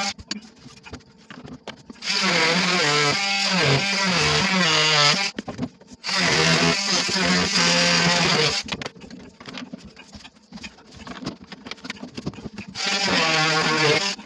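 Cordless oscillating multi-tool cutting into a PVC pipe fitting. It runs in three bursts of about three, two and a half and one second, its pitch dipping and wavering as the blade bites. Clicks and scraping of the blade on the plastic come between the bursts.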